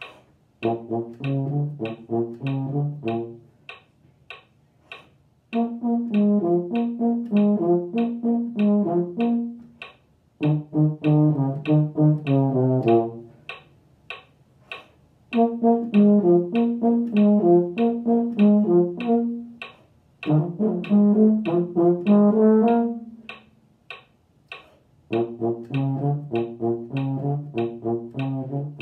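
Euphonium playing a low brass line in short, separate notes, in phrases of three to four seconds with short rests between. A steady click keeps time about two and a half times a second, audible through the rests.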